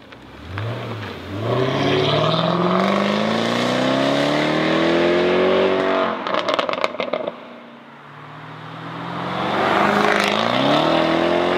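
Sports car engine accelerating hard: a short blip, then a long rising pull of about five seconds, a burst of exhaust crackles and pops as the throttle lifts, and a second rising pull that drops at an upshift near the end.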